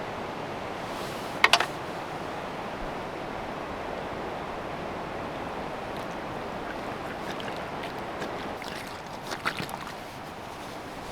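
Steady rushing noise, like wind or water, with two sharp ringing clinks about a second and a half in and a few lighter clinks near the end.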